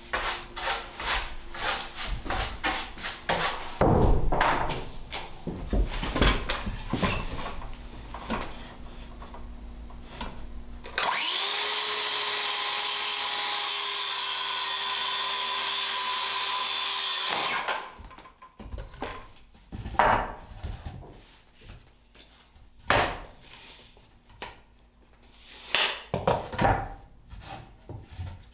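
Wooden boards knocking and clattering as they are handled and set down. About eleven seconds in, a cordless circular saw starts up and runs steadily through a cut for about six seconds, then stops, and the knocking of wood pieces resumes.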